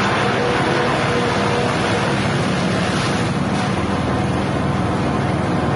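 Elephant-grass chopper machine running steadily, its motor and spinning blade rotor making a continuous loud hum with a rushing noise over it.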